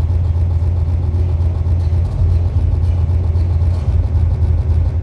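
Live electronic noise from homemade circuit instruments: a loud, dense wall of hiss-like noise over a strong, steady low hum.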